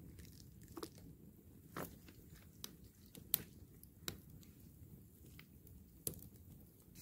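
Wood campfire crackling, with a few sharp pops at irregular intervals over a low steady rush, the loudest pop about three seconds in.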